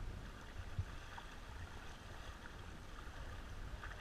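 Choppy water lapping and splashing against the hull of a rowing shell, over a steady low rumble.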